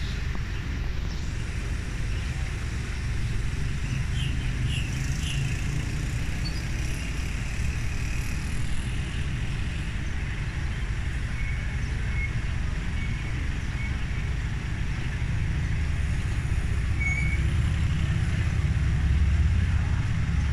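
Diesel locomotive hauling a passenger train, running with a steady low rumble as it approaches, growing louder near the end as it nears. Motorcycles and road traffic run alongside.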